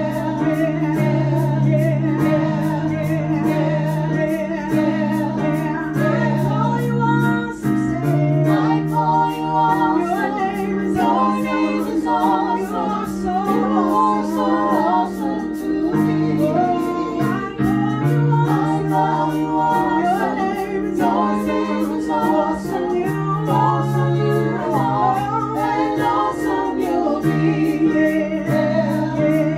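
A small worship group of a man and two women sings a gospel praise song, accompanied by sustained chords on a Roland digital piano.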